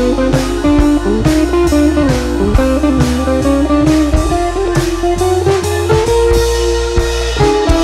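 Background music: a blues-style guitar tune over bass and drums with a steady beat.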